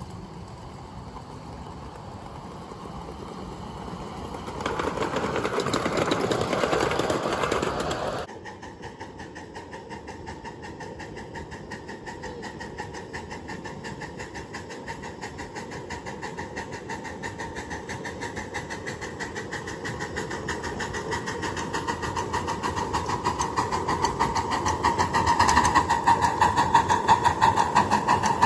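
Ride-on miniature railway trains running: a diesel-outline locomotive passes with a loud spell of engine and running noise that cuts off suddenly, then a steam-outline locomotive pulling loaded cars approaches with a rapid regular beat that grows steadily louder.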